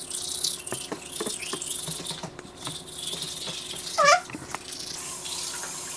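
Toothbrush bristles scrubbing back and forth over teeth, a fast scratchy rasp of many small strokes. A short squeak about four seconds in.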